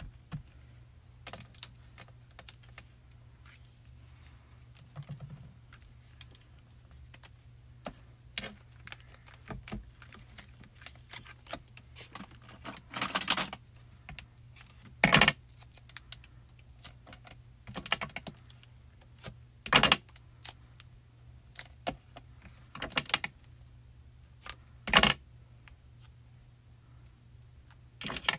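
Irregular clicks, taps and light rustles of paper-crafting by hand: card stock being pressed and shifted on a cutting mat and foam tape pieces being laid down, with a handful of louder, sharper snaps from about halfway through to near the end.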